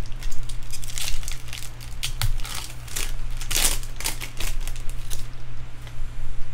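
Foil wrapper of a jumbo pack of baseball cards crinkling in quick crackles as hands tear it open, stopping about five seconds in. A steady low hum runs underneath.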